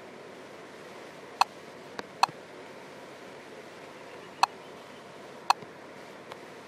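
Sharp taps on a touchscreen, six of them spaced unevenly, two much fainter than the rest, over a steady hiss.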